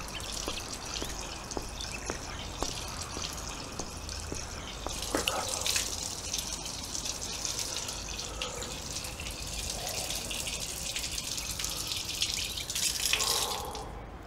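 Water running and splashing at a stone roadside fountain, with scattered drips. It grows louder about five seconds in and falls away near the end.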